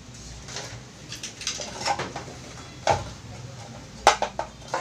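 A mixer grinder being taken apart by hand, its screws already loosened: scattered clicks and knocks of its parts being handled and pulled apart, with the sharpest cluster of knocks just after four seconds in.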